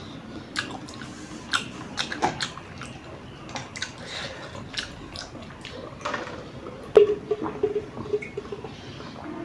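Close-up mouth sounds of noodles being chewed, with small sharp crunches and clicks. About seven seconds in, a click and a run of quick gulps as a drink is swallowed from a bottle.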